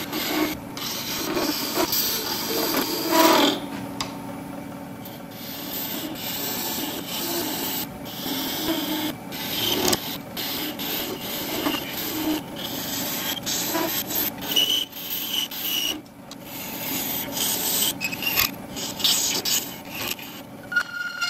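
A hand-held turning tool scraping and cutting a spinning solid brass workpiece on a wood lathe. It makes a harsh, uneven rasping that swells and eases as the tool bites and lifts, with a faint high squeal now and then.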